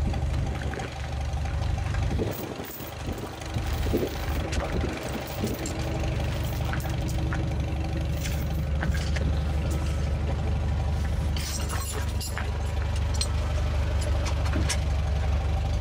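An engine idling steadily, with scattered light crunches and clicks of footsteps on gravel.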